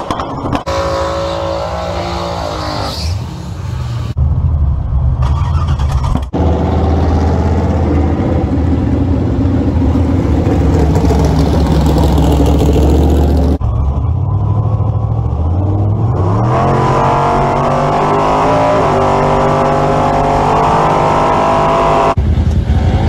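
Loud engine sound from a string of car clips, running and revving, with abrupt changes between clips and an engine note rising as one accelerates about two-thirds of the way through. Some of it is a drag race car at a racetrack.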